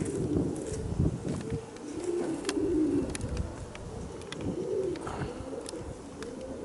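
Domestic pigeons cooing, several low warbling coos one after another, with scattered sharp clicks.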